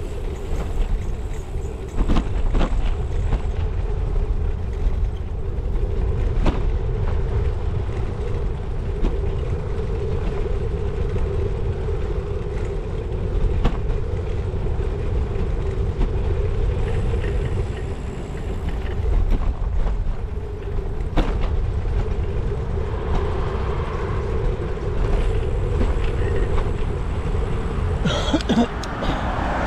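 Bicycle in motion, heard from a handlebar-mounted camera: a steady low rumble of wind and tyres on tarmac with a constant hum, and occasional knocks as the bike goes over bumps. Near the end, traffic noise grows as the bike reaches a main road.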